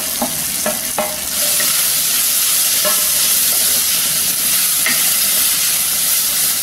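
Ridge gourd peel, onion and green chillies sizzling in oil in a clay pot while being stirred with a wooden spatula, with grated coconut just added. A few scrapes of the spatula in the first second, then the sizzle gets louder and stays steady.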